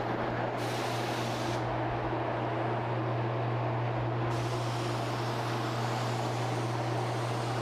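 Spray gun spraying shellac-based BIN sealer primer: a steady low hum under a rushing hiss of air and atomised finish. The hiss brightens briefly about half a second in and again from about four seconds in, as the gun is triggered.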